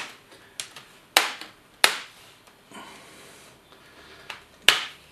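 Plastic retaining clips of an HP G6 laptop's screen bezel snapping loose as the bezel is pried off by hand: a few sharp, irregularly spaced plastic snaps, with a faint scraping of plastic about halfway through.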